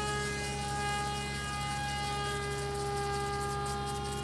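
Steady high-pitched whine of a Scythe RC flying wing's Zoom 370 electric motor and propeller at part throttle as the plane comes in low to land.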